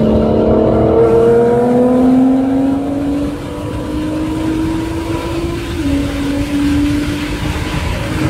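Performance car engine pulling hard at wide-open throttle, heard from inside a car's cabin. Its pitch climbs steadily, drops abruptly about six seconds in at an upshift, then climbs again, over steady road and wind noise.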